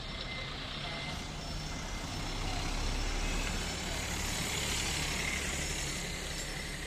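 Cars driving over a level crossing in a town street: steady traffic noise with a low engine and tyre rumble, swelling as a small car passes close about halfway through.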